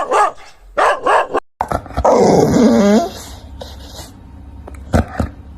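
A dog barking three short times, then, after a cut, one longer drawn-out call that falls in pitch.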